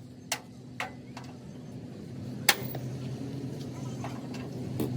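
Hammer blows on metal in a truck-body workshop: four irregular sharp strikes, the loudest about two and a half seconds in, over a steady low hum.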